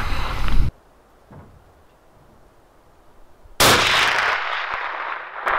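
A .308 rifle fired with a reduced-velocity 150-grain load: after a quiet pause, one sudden loud report about three and a half seconds in, its echo fading over about two seconds. A second sharp crack comes near the end.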